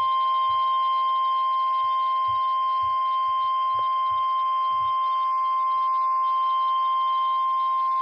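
NOAA Weather Radio 1050 Hz warning alarm tone, one steady high beep held unbroken, sent for a required weekly test of the weather alert receivers.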